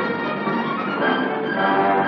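Orchestral film score music, sustained chords with strings, growing fuller about a second in.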